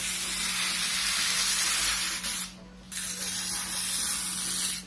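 Plastic packaging being pulled off a new washing machine: two long hissing pulls with a short break about halfway through.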